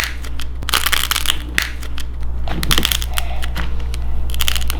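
Dried air-dry clay shape with a nail-polish coating being crushed by hand, giving a run of short crackling crunches. The crackle is rather weak, which the mother puts down to the clay not being fully dry.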